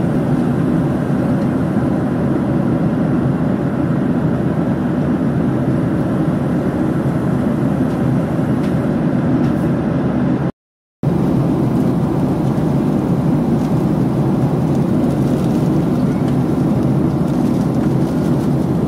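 Steady drone of a jet airliner's engines and airflow heard inside the passenger cabin in flight. It drops out completely for about half a second near the middle, then resumes unchanged.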